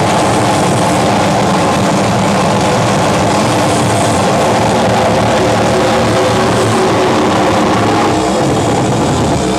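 Live harsh noise music from electronics: a loud, unbroken wall of distorted drone with several steady tones layered through it. The texture shifts a little about eight seconds in.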